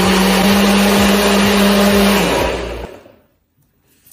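A NutriBullet personal blender's motor runs on high, blending a smoothie. About two and a half seconds in it cuts out and spins down.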